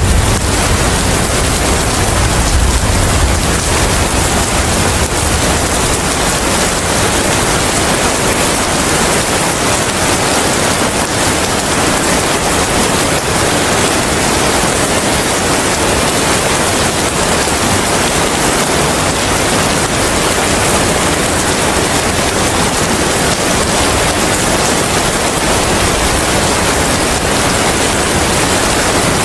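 Steady, dense rain hiss with wind, even throughout, with a low rumble fading out over the first few seconds.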